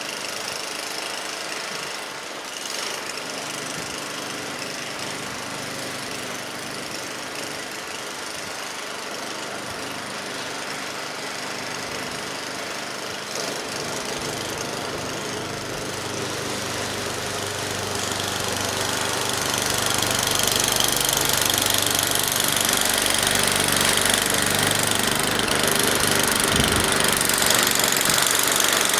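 Gas snowblower engine running steadily, growing louder about two-thirds of the way through.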